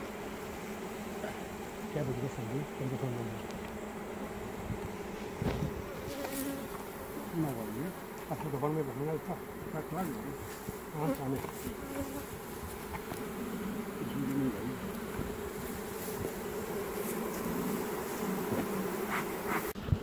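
Honey bees buzzing around an opened hive: a steady drone with single bees flying past, their pitch rising and falling. A few sharp knocks come about five to six seconds in.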